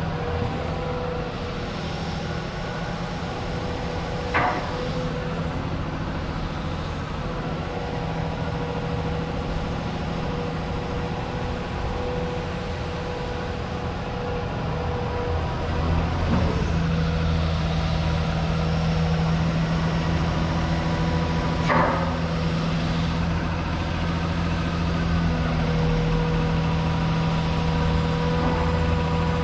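Komatsu PC210LC-11 excavator's diesel engine running steadily as the boom, arm and bucket move, growing louder about two-thirds of the way through. A few brief sharp clunks or squeaks come from the working machine, about 4 s, 16 s and 22 s in.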